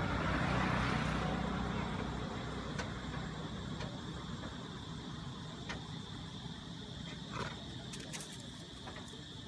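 A motor vehicle engine running nearby, a steady low hum that fades away over the first few seconds, leaving quieter outdoor background with a few faint ticks.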